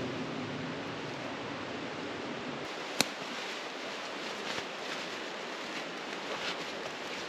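Steady rush of flowing water, with one sharp click about three seconds in and a few faint rustles after it.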